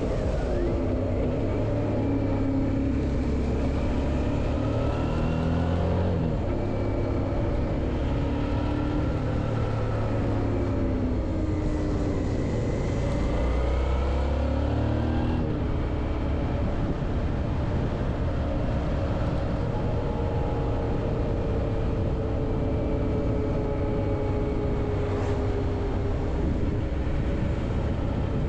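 Suzuki V-Strom 650's V-twin engine running while riding. Its pitch climbs and drops back several times with throttle and gear changes in the first half, then holds steadier, over a constant rush of noise.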